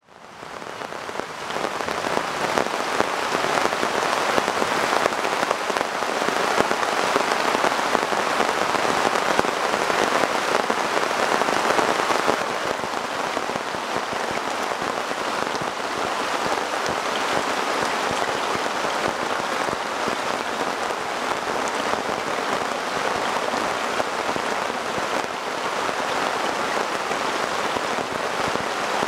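Heavy rain pouring steadily onto a surface, fading in over the first couple of seconds and easing slightly about halfway through.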